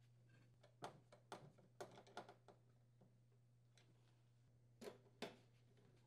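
Faint clicks and taps of a hand screwdriver turning screws into the sheet-metal frame of an electric downdraft cooktop: a quick run of clicks about a second in, then two more near the end.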